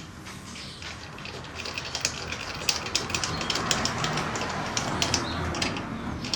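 Hand tools working on the YZ250's drain and oil-fill plugs: a fast run of sharp metallic clicks over a steady hiss, growing louder about a second and a half in and thinning out near the end.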